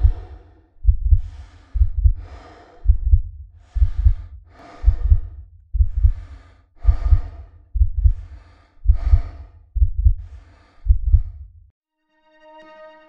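Heavy, quick breathing over a deep, thudding heartbeat, about one breath and beat a second, like an athlete exerting hard. The pattern stops near the end, and quiet synthesizer music begins.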